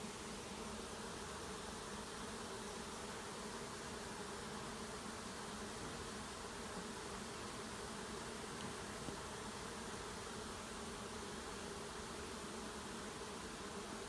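A swarm of bees buzzing steadily: the dense, even hum of many bees in flight at once, coming and going in a busy stream.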